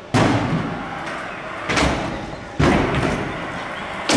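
Stunt scooter hitting the concrete four times, each sharp impact followed by a fading rumble of the wheels rolling.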